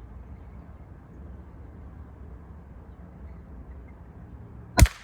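An Umarex NOTOS .22 PCP air rifle fires a single shot near the end, one sharp crack over a low steady background hum.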